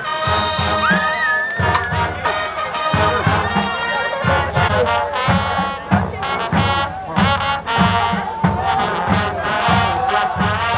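Brass band music, trumpets and trombones over a steady drum beat, typical of a school band playing at a football game.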